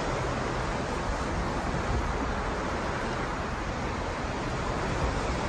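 Steady, even rush of sea water, like waves washing, with no breaks or single waves standing out.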